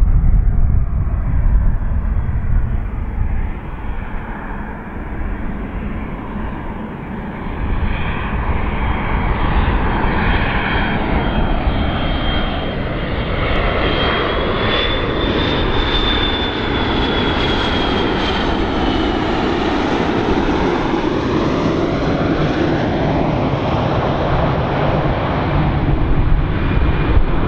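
McDonnell Douglas MD-82's two rear-mounted Pratt & Whitney JT8D-217 turbofans on final approach: a loud, steady jet rumble with a high whine that rises slightly and falls again as the airliner passes, about halfway through.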